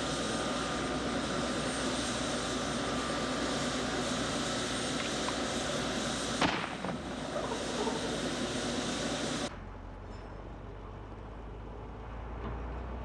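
Steady engine and rotor noise of a helicopter overhead, with a faint whine in it. A single sharp knock about six and a half seconds in. The noise cuts off suddenly about nine and a half seconds in, leaving a quieter low hum.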